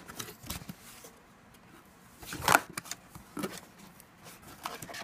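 Cardboard and plastic packaging rustling as a box is handled and opened, in irregular bursts with a few clicks and one louder rustle a little past halfway.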